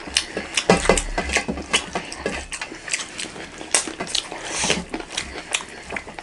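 Close-miked eating sounds: chewing, lip smacks and many quick irregular clicks, with fingers working rice on metal plates.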